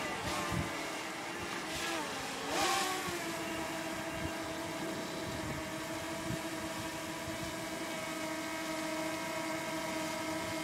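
Departing container freight train droning with a steady hum that dips and wavers in pitch in the first three seconds, then holds level, with a few soft knocks underneath.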